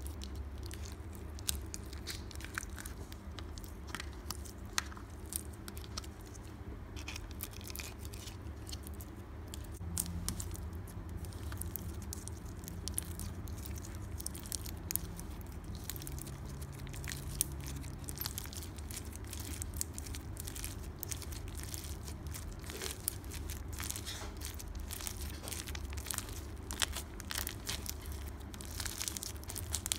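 Clear pink slime being poked, squeezed and stretched by fingers with long fake nails, giving a stream of small crackling clicks and pops.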